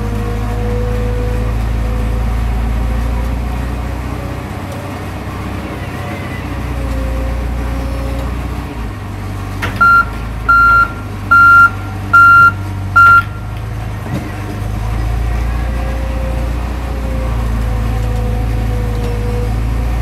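Small crawler bulldozer's engine running under changing load as it works against a tree. About halfway through, its backup alarm beeps five times in a steady series, louder than the engine.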